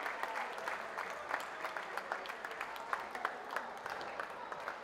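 Crowd applauding, the clapping thinning out and fading toward the end.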